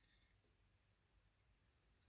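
Near silence: room tone, with a faint brief sound right at the start.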